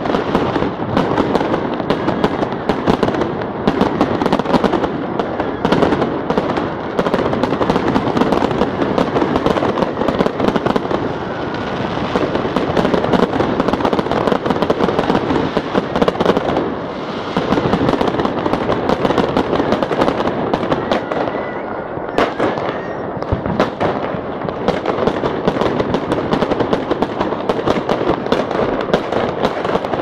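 Aerial fireworks display: a continuous, dense crackling and banging of bursting shells, with a faint rising whistle about two-thirds of the way through.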